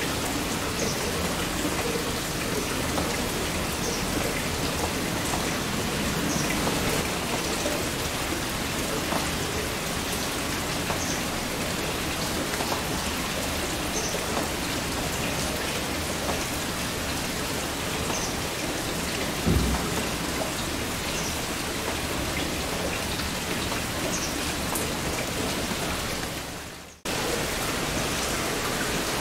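Heavy rain falling steadily, with one low thump about two-thirds of the way through. Near the end the rain fades out briefly and cuts back in at an edit.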